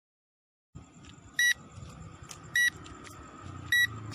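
A drone's lost-model locator buzzer beeping: short, high-pitched beeps a little over a second apart, three in all, over a low background rumble.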